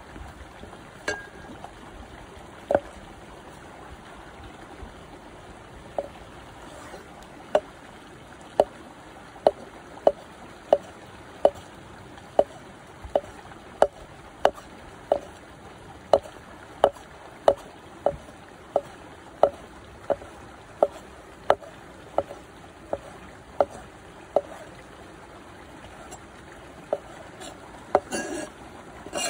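A large chef's knife chopping sausage on a thick wooden cutting board: sharp knocks of the blade hitting the board, a few at first, then a steady run of about one and a half a second, and a short cluster near the end. Under it, a steady trickle of running water from a stream.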